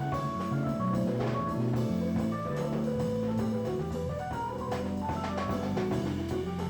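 Jazz quartet playing live: saxophone, keyboard, bass and drum kit, with a melodic line of short notes over a moving bass and steady drumming.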